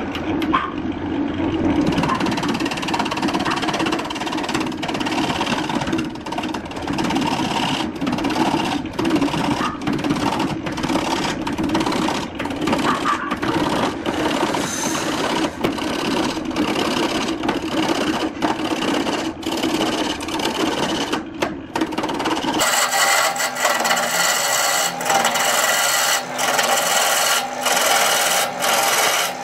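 Wood lathe spinning a block of areca tree root while a hand-held turning tool cuts into it: a continuous rough scraping, shaving sound with frequent short clicks. About three-quarters of the way through it turns abruptly brighter and thinner.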